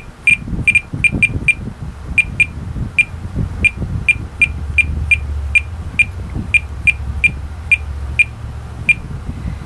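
Spektrum DX6 transmitter beeping once for each click of its scroll roller as it is turned through the letters of the model name: short high beeps of one pitch, about three a second, with a brief pause about two seconds in. A low rumble sits underneath through the middle.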